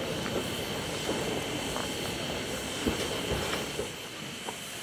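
A steam locomotive moving slowly through a railway yard: a steady hiss with a few scattered metallic clanks and knocks, the strongest about three seconds in.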